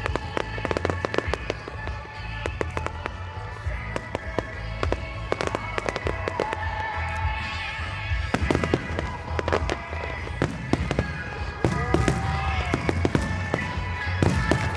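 Fireworks going off, many sharp cracks and bangs in quick succession throughout, with music playing alongside.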